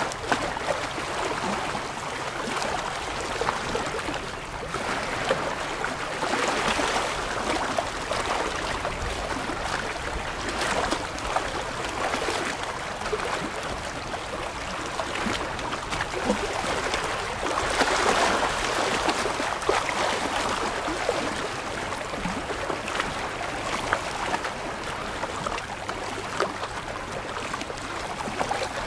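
Small waves lapping and splashing over shoreline rocks: a steady wash that swells louder every few seconds, with little splashes and trickles between.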